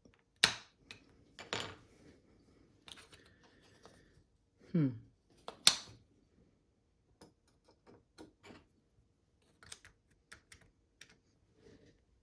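Sharp clicks and taps of a plastic car-key shell and small screwdriver as the key's parts are pried and fitted, with three louder clicks in the first half and one brief sound falling in pitch just before the last loud click.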